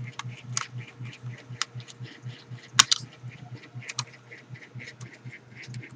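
Keys of a Wellrui V802 keyboard being pressed one at a time, irregular clicks with one loud clack about three seconds in. A low hum pulses underneath about five times a second.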